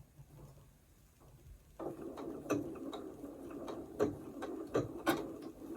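Sewing machine starting up about two seconds in and running slowly with a clicking mechanical beat, sewing a blanket stitch.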